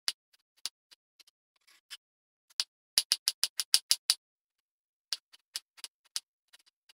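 Kitchen knife chopping red onion on a wooden cutting board, each stroke a sharp knock of the blade on the board. The strokes are scattered at first, then come in a quick run of about ten near the middle, then a few more spaced knocks.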